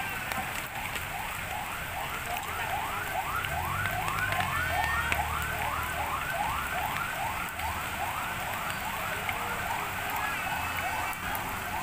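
An electronic siren yelping: a rising sweep repeated about three times a second, over the steady hiss of rain.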